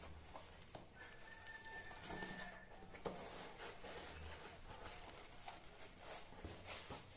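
Plastic bag wrapping and a cardboard box rustling and crinkling under handling, with a sharp click about three seconds in. A long, steady, high call sounds in the background for under two seconds, about a second in.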